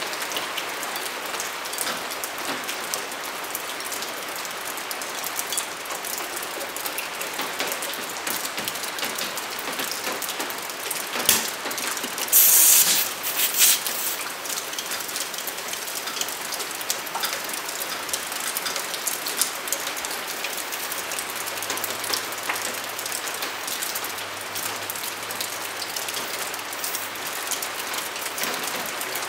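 Air hose chuck on a dirt bike tire's valve stem, inflating the newly mounted tire: a steady hiss of air with a fine crackle of clicks, and a few louder, brief hissing bursts about twelve to fourteen seconds in.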